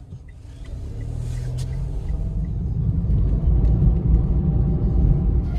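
Low, steady rumble of a car in motion, growing louder over the first few seconds.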